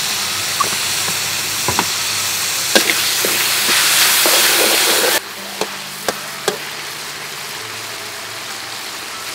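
Chicken pieces sizzling in hot oil in a metal wok, with a metal ladle clicking and scraping against the pan as they are stirred. The sizzle drops abruptly about five seconds in and carries on quieter.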